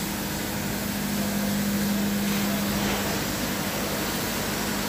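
A machine running steadily nearby, a constant low hum with a hiss over it.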